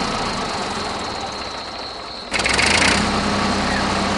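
A small motor running steadily, with a sudden loud buzzing burst a little over two seconds in that lasts under a second before the steady running resumes.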